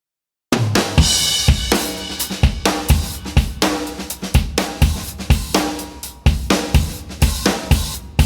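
Music with a drum-kit beat (kick, snare and cymbals) over held chords, starting abruptly about half a second in, with heavy hits about twice a second.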